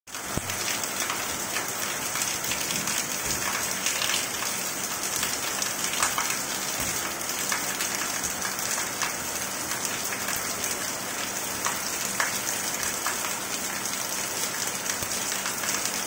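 Steady rain falling on hard surfaces: a constant hiss dotted with the ticks of individual drops.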